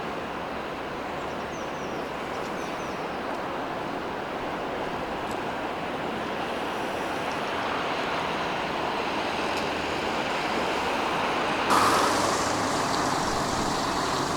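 City street traffic noise: a steady wash of passing vehicles. About twelve seconds in it abruptly gets louder and brighter.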